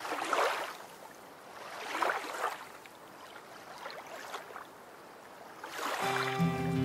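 Sea waves washing in gentle swells, about one every two seconds; music comes in near the end.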